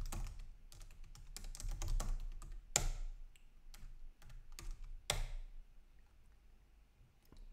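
Laptop keyboard typing in quick runs of key clicks, with two harder key strokes about three and five seconds in; the typing thins out and stops about six seconds in.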